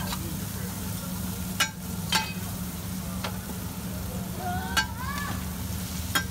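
Metal spatula clinking and scraping on a large wide frying pan of noodles and bean sprouts, with a few sharp clinks, under a steady sizzle and low hum.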